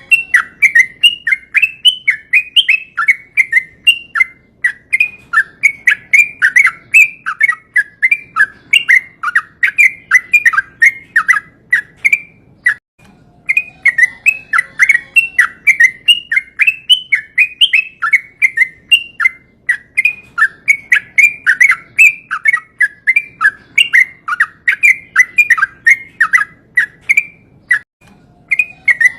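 Yellow-vented bulbul (trucukan) singing its long, rapid, bubbling chatter of notes in the 'ropel' style. Two long runs are split by a brief pause about halfway through, and a short pause comes near the end.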